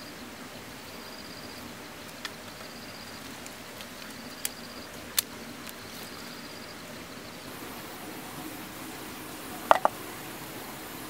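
Dry sticks knocking and cracking as they are handled and laid on rock: a few sharp single clicks, then the loudest, a double crack, near the end. An insect chirps in even, high, pulsed bursts about once a second through the first two-thirds.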